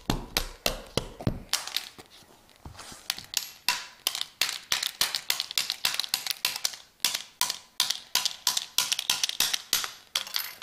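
Rapid repeated blows striking a Nokia flip phone, several hits a second, with a short pause about two seconds in; sharp tapping knocks on its hard plastic casing as it is beaten to break it.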